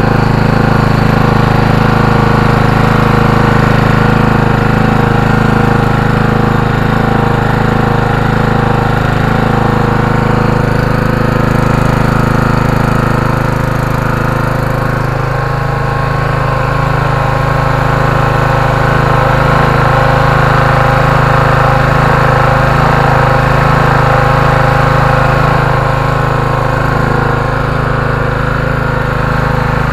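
Honda GX-series single-cylinder petrol engine running steadily on a generator, with a slight change in its tone about halfway through.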